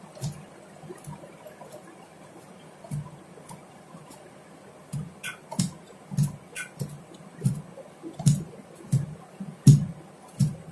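Mixer's universal motor being spun by hand as a generator: a run of soft thumps and clicks as the shaft is flicked round again and again. The strokes are faint at first, then from about halfway come one to two a second and grow louder.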